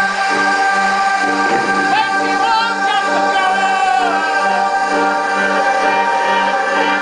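Loud dance music playing over a club sound system: held synthesizer chords over a low note pulsing about twice a second. About two seconds in, a singing voice with a wavering pitch joins for a couple of seconds.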